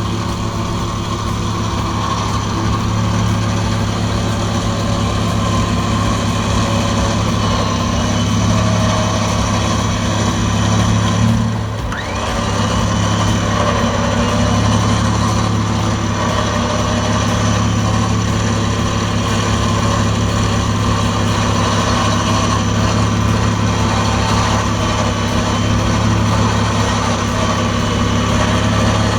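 12,000 lb Borne electric winch pulling in its cable under load, a steady motor-and-gear drone with an engine running beneath. About twelve seconds in it dips briefly, with a short rising whine, then carries on steadily.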